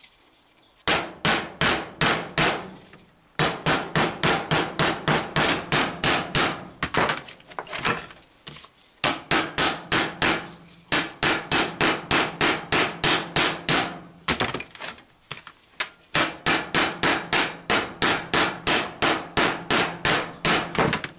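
Ball-peen hammer peening over a steel rivet made from a nail, in a spade's steel handle socket backed by a steel stub axle: quick metallic blows, about four a second, in runs with short pauses between, each run ringing. The blows spread the rivet's end into a head that locks the new handle in place.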